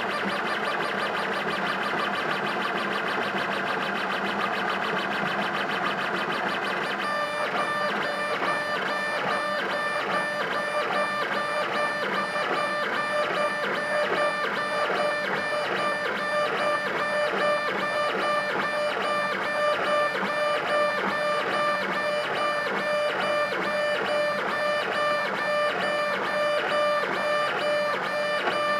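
Background music with a steady, evenly repeating rhythm; the music changes character about seven seconds in.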